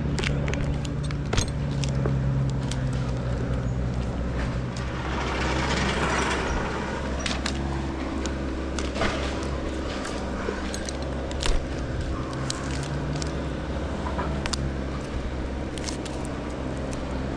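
An engine running steadily at constant speed, with scattered sharp metallic clinks and scrapes over it and a brief rustle a few seconds in.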